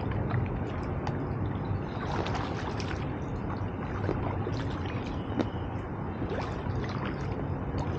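Raft paddles dipping and splashing in floodwater, with water trickling and dripping, over a steady low rumble.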